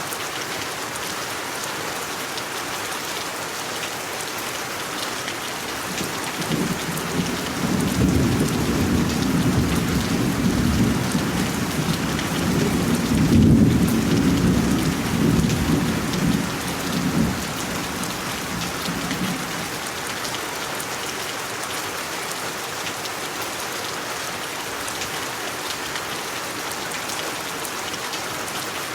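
Steady heavy rain falling, with a long roll of thunder that builds from about six seconds in, is loudest around the middle and rumbles away by about twenty seconds.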